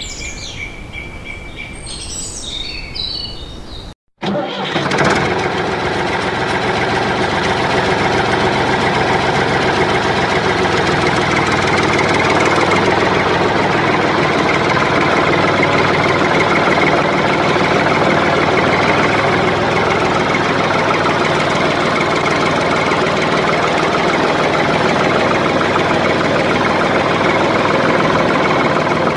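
Tractor engine sound that starts about four seconds in, after a brief dropout, then runs steadily, growing a little louder over the next several seconds.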